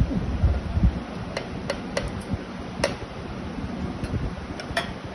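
Hands handling a metal plate and lifting off an etching stencil: a few soft thumps in the first second, then scattered small sharp clicks and ticks.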